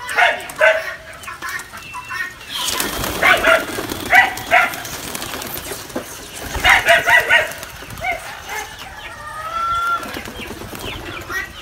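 Chickens clucking in short repeated calls, mixed with the flapping wings of pigeons taking flight from the loft, which sets in loudly about two and a half seconds in.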